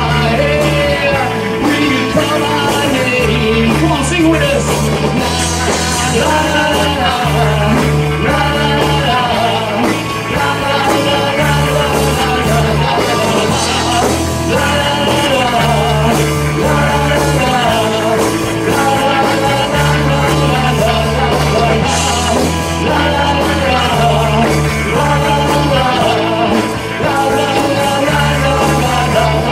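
Live rock band playing loud and steady: electric guitars, electric bass and drum kit, with a singer's voice over the band. The bass line steps between notes every second or two.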